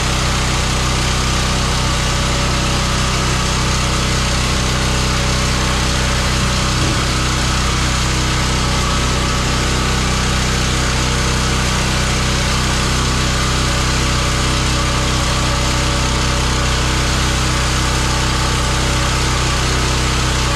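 Pressure washer with a small engine running steadily, one even engine drone with a hiss over it that does not change.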